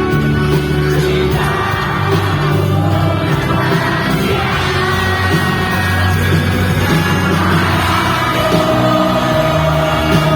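Live pop-rock concert music with singing, loud and steady, with crowd yells mixed in.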